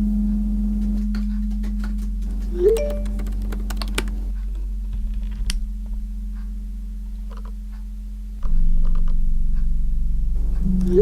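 Low, steady ambient music drone under scattered key clicks, typing on a typewriter. About eight seconds in, the drone steps up suddenly louder.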